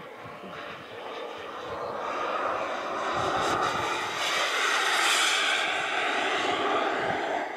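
Turbine engines of a twin-jet RC scale Messerschmitt Me 262 model flying past, a whining hiss that builds to its loudest about five seconds in as the jet passes low, then falls away sharply near the end.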